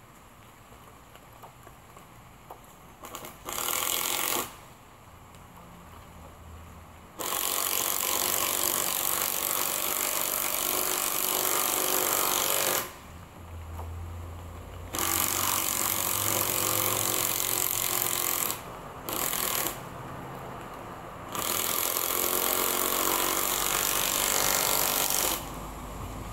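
Power drill driving screws into the wooden greenhouse frame, running in about five bursts that start and stop sharply: a short one early, three long runs of four to six seconds and one brief one.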